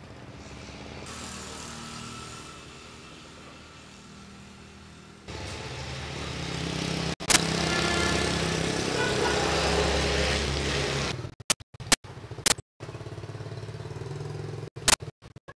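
Motorbike engines running as they drive past, loudest from about five seconds in. Near the end the sound breaks into short pieces with several sharp clicks.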